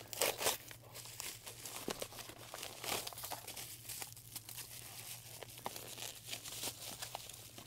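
Crinkly white package wrapping being torn open and crumpled by hand. A louder rustle comes about half a second in, followed by a scatter of small crackles and rustles.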